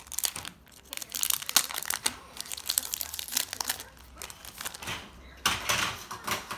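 Crinkling and tearing of a Pokémon booster pack's foil wrapper as it is ripped open by hand, with a dense run of crackles, then a louder rustle near the end as the cards are pulled from the pack.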